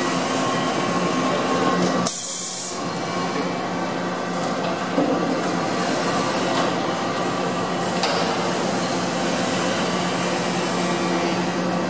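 Mazak Flex-1 robot loader working a CNC lathe: a steady machine hum, broken by short hisses of compressed air from the loader's pneumatic gripper, about two seconds in and again about seven seconds in.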